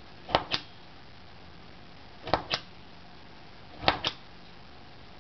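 Japanese screw punch punching sewing holes in a folded paper book card, three times about a second and a half apart, each punch a quick double click.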